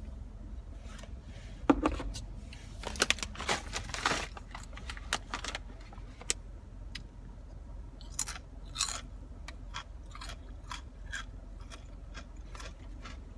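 A person chewing and crunching food close to the microphone, with scattered sharp clicks and rustles, busiest about three to four seconds in and again around eight seconds. A steady low hum from the car's heater runs underneath.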